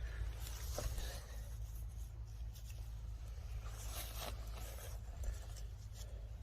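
Steady low wind rumble on the microphone, with a handful of short scrapes and rustles.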